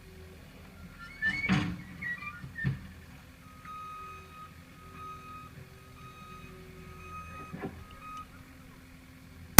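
Metallic clicks of a .25 air rifle's action being cycled, then a faint beep that repeats at a steady pitch for several seconds, and a sharp crack right at the end.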